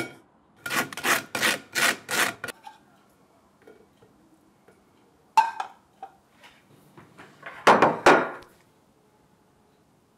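A knife scraping spread across dry toast in about five quick strokes. A sharp click comes a few seconds later, then two louder scrapes of a metal spatula against a frying pan as a fried egg is served.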